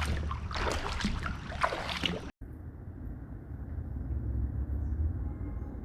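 Kayak paddle strokes splashing and dripping in lake water for about two seconds, then an abrupt cut to a steady low rumble of distant road traffic.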